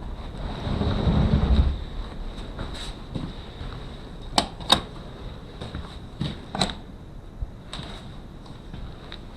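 A low rumbling gust of blizzard wind on the microphone lasting about a second, then a handful of sharp knocks and clicks, two close together near the middle.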